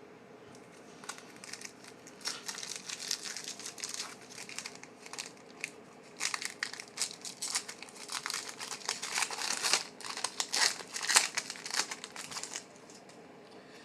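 Foil trading-card pack wrapper being crinkled and torn open by hand: irregular crinkling and crackling, thickest in the second half, that stops shortly before the end.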